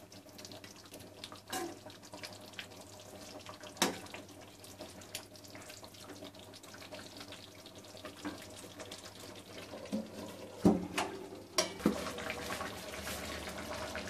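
Chicken pieces simmering in the water they have released in an aluminium kadai, a steady bubbling hiss. A few sharp knocks of the metal spatula against the pan.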